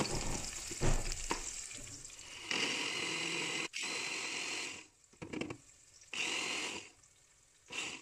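Onions sizzling in hot oil, then an electric blender grinding tomatoes. The blender runs for about two seconds, then stops and starts in short pulses.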